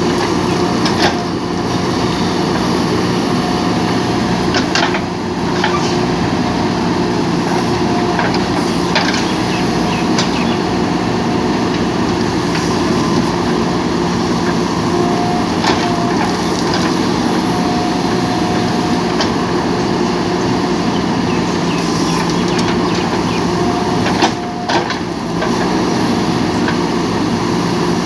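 Heavy-equipment diesel engine running steadily under work, with a few short knocks and clanks and a faint higher whine that comes and goes.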